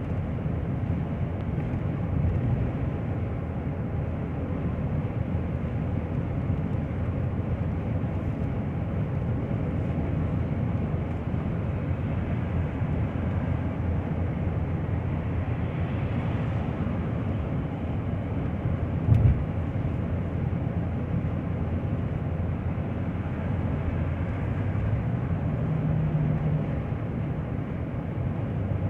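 Car engine and road noise, steady throughout, with a single sharp thump about nineteen seconds in.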